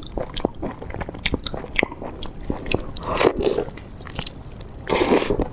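Close-miked eating sounds of someone biting into and chewing a large chunk of food coated in thick spicy sauce: wet mouth clicks and smacks, with two longer, louder bites about three and five seconds in.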